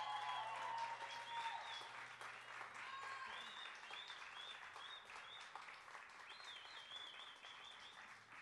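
Audience applause with cheers and whoops at the end of a live song, slowly fading out.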